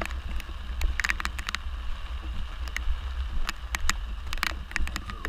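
Storm wind buffeting the microphone as a steady low rumble, over the hiss of rain, with frequent sharp clicks scattered throughout.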